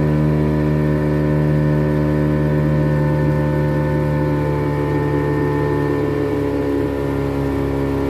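The engine of a small open longboat running steadily under way, holding an even pitch.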